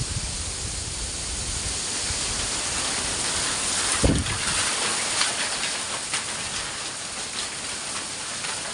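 Strong wind: a steady rushing hiss, with gusts buffeting the microphone in low rumbles, the hardest about four seconds in.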